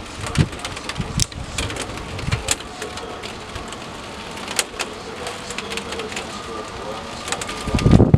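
Rain falling, with many scattered sharp drip ticks close by over a steady hiss. A low buffeting rumble comes in near the end.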